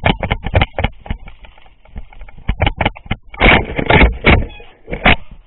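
Mountain bike rattling and knocking as it is ridden over roots on a rough, technical trail: a fast, irregular run of clatters and knocks, heaviest about three and a half to four and a half seconds in.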